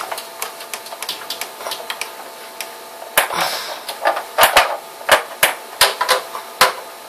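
Plastic menu buttons on an NEC VT460 projector pressed again and again, giving irregular clicks, with the sharpest presses coming in quick succession in the second half.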